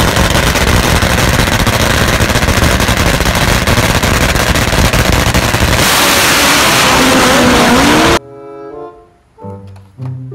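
Drag racing motorcycle's engine running loud on the starting line, the sound turning smoother about six seconds in with a short rising rev near the end; it cuts off suddenly about eight seconds in, and music follows.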